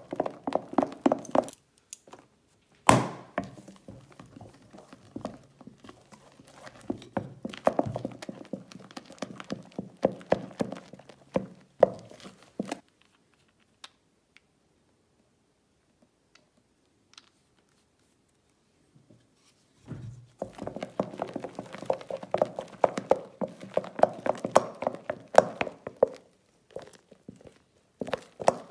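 Wooden stick stirring thick slime in a glass bowl: rapid clicks and knocks of the stick working the mixture against the glass. It comes in long bouts, with a quiet stretch of several seconds in the middle.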